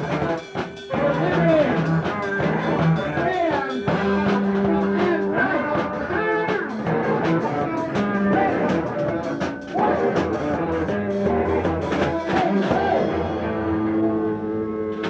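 Rock band playing a song: electric guitar, bass and drum kit, with drum hits at a steady beat throughout.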